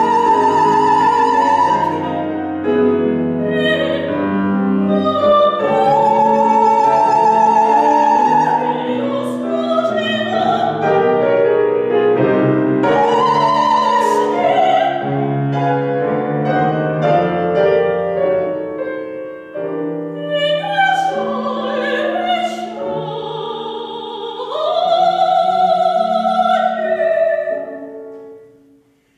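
Operatic female singing with piano and string quartet accompaniment in a contemporary chamber opera, the voice holding long notes with vibrato. Near the end the music dies away into a pause.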